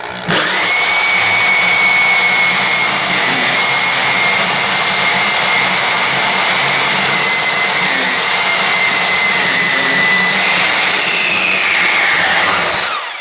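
Power tool cutting through the steel (ferrous) housing of a boiler pump motor: a loud, steady high whine over a hiss, shifting in pitch a little near the end before it stops.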